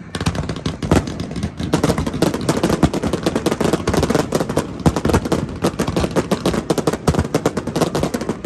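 Fireworks shells bursting in a dense, rapid barrage: many sharp bangs overlapping, several a second.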